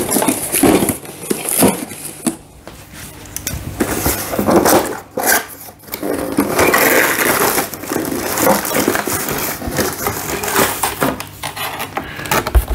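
Cardboard accessory box being handled and opened, its flaps scraping and flapping, then plastic-bagged fittings and hoses rustling and clattering as they are tipped out onto a table: an irregular run of rustles, knocks and light clinks.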